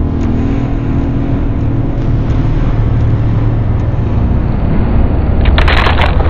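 A loud, steady low rumble with a faint hum over it, then a short burst of harsh hissing crackle near the end.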